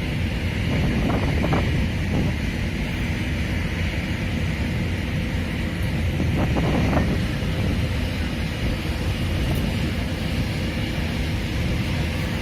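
Wind buffeting the microphone over a steady low rumble, as on the open deck of a moving ship.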